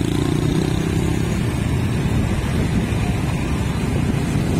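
Motorcycle engine and road noise, a steady hum while riding slowly in traffic among other motorcycles and scooters.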